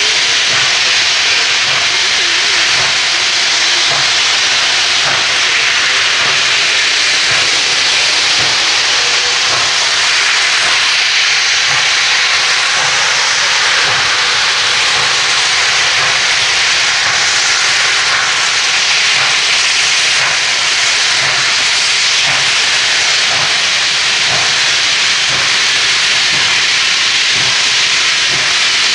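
Nickel Plate Road No. 765, a 2-8-4 Berkshire steam locomotive, hissing loud and steady as it works slowly uphill at a crawl, close to stalling under its load.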